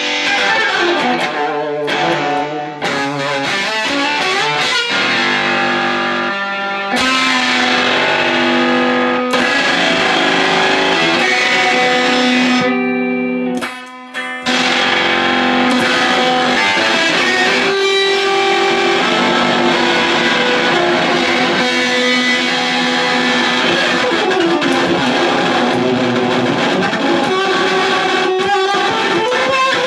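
Mosrite electric guitar played solo in an improvisation: ringing, sustained notes, a short break about halfway through, then notes that slowly glide in pitch.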